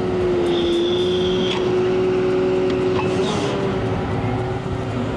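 Sennebogen 825e material handler's diesel engine and hydraulics running steadily with a steady whine while the machine is worked from the joysticks, with a few light knocks.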